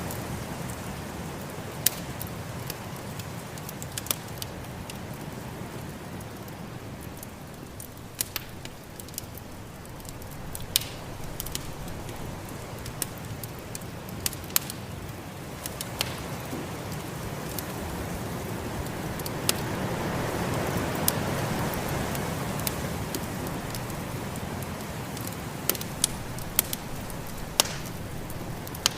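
Wood fire crackling, with frequent sharp pops and snaps, over the steady rush of snowstorm wind that rises to a gust about two-thirds of the way through and then eases.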